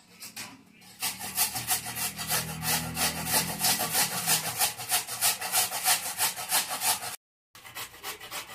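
Red carrots being grated on a hand-held metal grater: quick, even rasping strokes, about four to five a second, the shreds falling into a steel bowl. The strokes start about a second in, break off briefly near the end, then resume.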